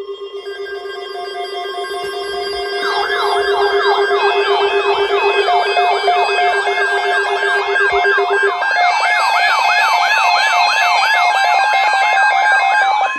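Layered electronic alert tones: a low pulsing tone and several higher steady and beeping tones, joined about three seconds in by a siren sweeping up in pitch about twice a second. The low pulsing tone drops out about two-thirds of the way through.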